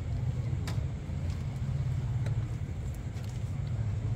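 Motorcycle engine idling steadily, with a couple of faint clicks.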